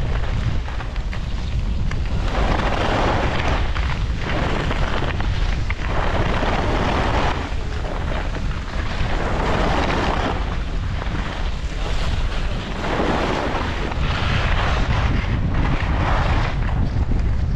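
Wind buffeting the microphone with a steady low rumble while skiing, and skis scraping over snow in a regular rhythm of turns, a hissing swell about every one and a half to two seconds.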